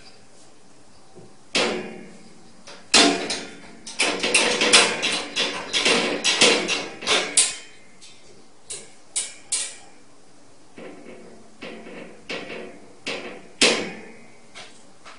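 Cage rattling and clanking as a cat forces its way out through it: a dense run of clattering knocks, then a handful of separate knocks.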